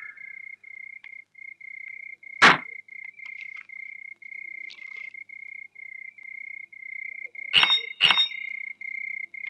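Crickets chirping: a single high tone pulsing evenly, about two to three chirps a second, as night ambience. A sharp knock about two and a half seconds in and two quick clicks near the end stand out above it.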